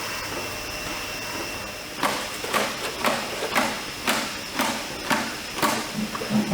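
A steady hiss with a faint high whine, then from about two seconds in a regular run of sharp knocks, about two a second, each ringing briefly.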